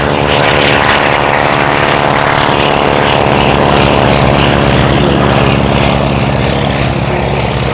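Radial engines and propellers of a formation of Stearman biplanes climbing out after takeoff: a loud, steady multi-engine drone. Its pitch sinks slightly as the planes pass and pull away.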